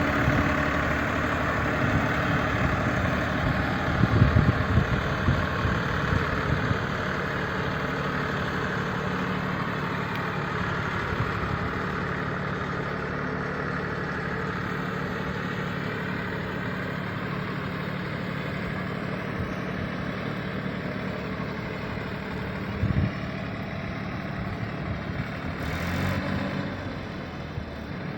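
Diesel tractor engine running steadily. A few brief louder bursts come about four to six seconds in and one more near twenty-three seconds.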